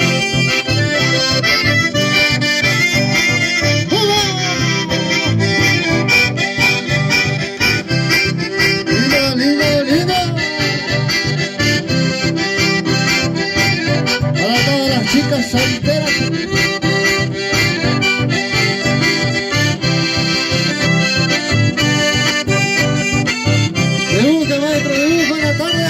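Live music from button accordions playing a lively tune over a steady beat, with a strummed acoustic guitar underneath.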